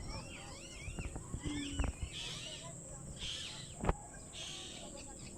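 Indian ringneck parakeets calling: a run of quick whistled chirps that sweep up and down in pitch, then three short harsh squawks about a second apart, with a single sharp click between the last two.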